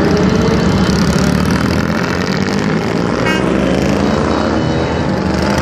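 Motorcycle engines running together, a dense, steady sound with several overlapping engine notes slowly shifting in pitch.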